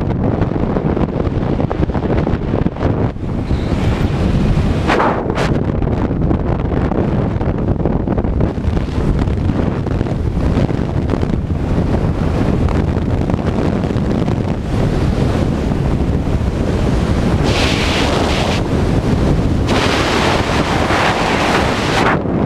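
Wind rushing over a body-worn camera's microphone during a descent under an open parachute canopy: a loud, steady rush with hissier gusts in the last few seconds.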